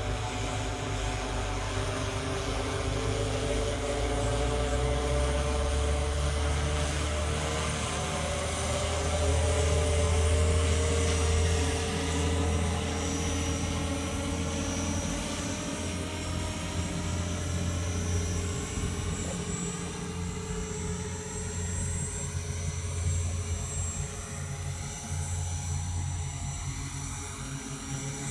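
Propellers of a VTOL fixed-wing drone buzzing steadily as it flies past and comes in to land, the pitch drifting as it manoeuvres.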